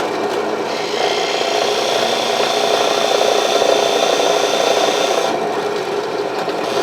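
Electric drill running steadily, its bit rubbing and scraping in the wooden handle without cutting deeper. A harsher scraping sets in about a second in and drops away about five seconds in. The bit is not cutting because the drill has bottomed out against its guide's depth stop.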